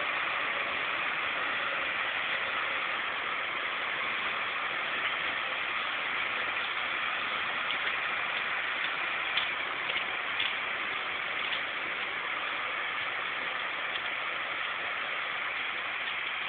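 A heavy vehicle engine running steadily, with a few faint clicks about two-thirds of the way in.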